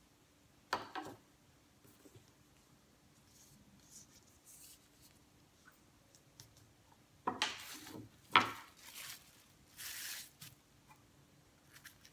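Plastic cling wrap rustling and crinkling in short bursts while it is handled, with a sharp tap about eight seconds in. A faint steady hum runs underneath.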